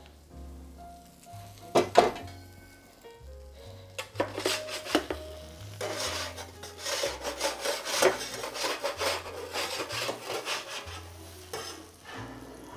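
A metal bench scraper scrapes roasted cauliflower florets across a metal baking sheet, a dense run of scraping and clattering from about four seconds in. Before that, the pasta pot is stirred, with one sharp knock about two seconds in. Background music with a low bass line runs under it.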